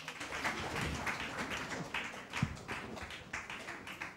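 Scattered hand claps and taps from the audience, a thinning round of applause, with one low thump about two and a half seconds in. It fades near the end.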